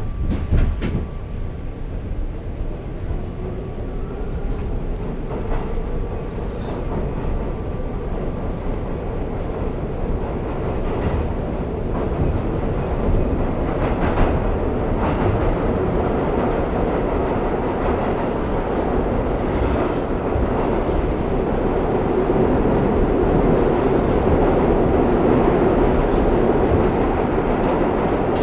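New York subway train rumbling through the station, wheels clacking on the rails, growing steadily louder. A faint steady whine sounds during the first several seconds.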